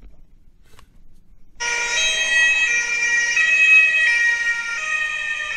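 Recorded siren of a passing emergency vehicle played back through a small loudspeaker. It starts about one and a half seconds in and steps between tones whose pitch drops as the vehicle goes by: the Doppler shift.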